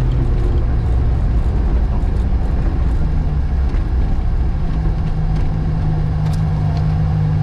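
Lada VAZ 2105 rally car's four-cylinder engine running at low speed, heard through the bonnet along with gravel and road noise; its pitch rises slightly about three seconds in and then holds steady.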